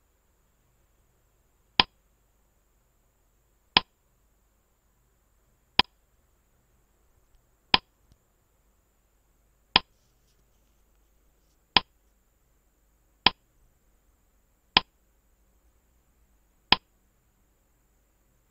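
Quiz countdown timer sound effect: single sharp clock ticks about every two seconds, nine in all, coming slightly faster near the end, with near silence between them.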